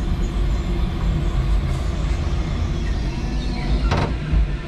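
A 5-ton electric forklift at work: a steady low hum from its motors and hydraulics as the mast and fork carriage move. A short sharp noise stands out about four seconds in.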